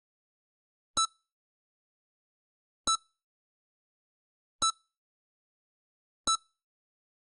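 EKG heart-monitor beeping: four short electronic beeps, one about every one and three-quarter seconds, with silence between.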